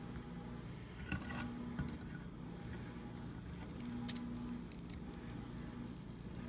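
Hands picking up and handling a plastic S.H. Figuarts Clone Trooper action figure: a few light plastic clicks and rattles, about a second in, near two seconds and around four seconds, over a faint low steady hum.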